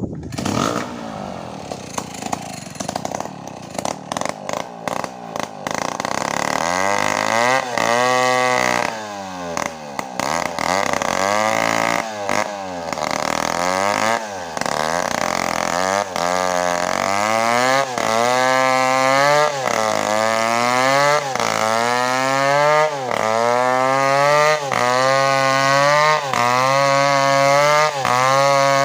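Chainsaw running hard, its engine pitch rising and falling over and over. The swings are slow at first and settle to about one every second and a half in the second half.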